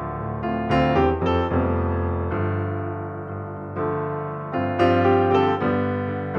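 Background solo piano music: held chords fading slowly, with runs of freshly struck notes about a second in and again near the end.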